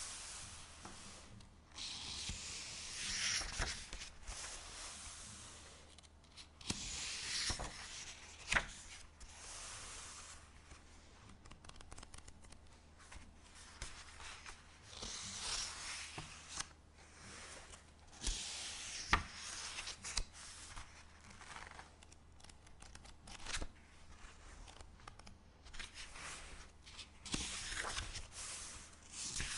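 Paper pages of a book being flicked and turned, a run of papery swishes and flaps every second or two, with small sharp ticks between them.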